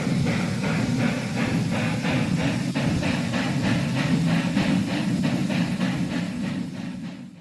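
Steam locomotive running, a steady rhythm of chuffs about three a second over a deep rumble, fading near the end and cutting off suddenly.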